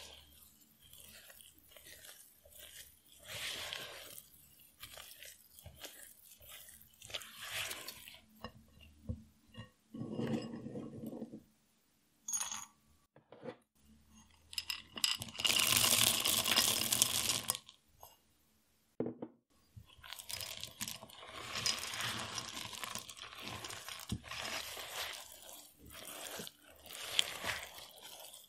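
A silicone spatula stirs and folds thick chocolate cookie dough in a glass bowl, in irregular sticky scraping strokes. About halfway through, chocolate chunks tumble into the bowl for a few seconds, the loudest part, and then the stirring resumes to fold them in.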